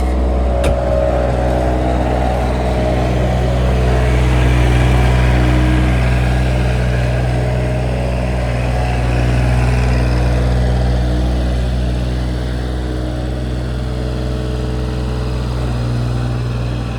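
John Deere 1335 tractor's engine running steadily, swelling a little louder a few seconds in and again near the middle.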